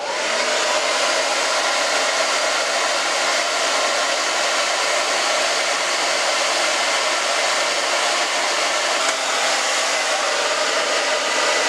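Handheld hair dryer switched on right at the start, then running steadily: a loud rush of air with a faint motor whine as it blow-dries wet hair.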